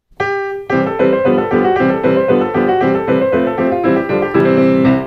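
Piano playing a brisk patter-song introduction: an opening chord a moment in, then bouncing accompaniment chords at about four a second.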